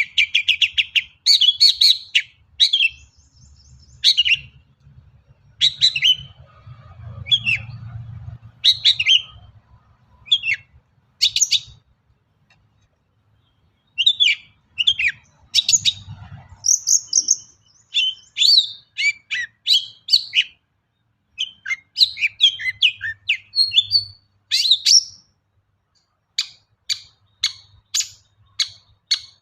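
Long-tailed shrike (cendet) singing a varied song of short, sharp chirps and quick phrases, with a pause of about two seconds near the middle and an even run of sharp notes, about three a second, near the end.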